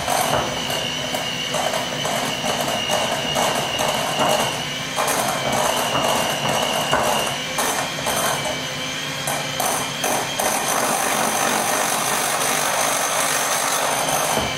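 Electric hand mixer running, its beaters whirring through thick cake batter in a bowl. There is irregular clattering for about the first ten seconds, then a steadier whir.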